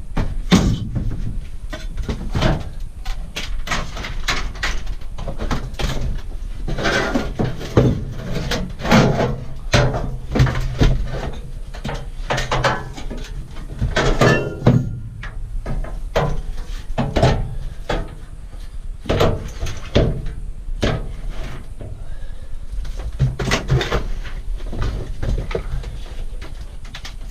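Scrap metal and other salvaged items being moved around and rearranged by hand: a steady run of irregular clanks, knocks and scrapes, over a steady low hum.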